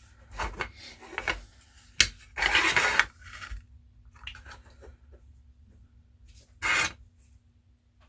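Small plastic model-kit parts and a hand tool being handled: short scraping rubs and a sharp click about two seconds in, over a faint steady hum.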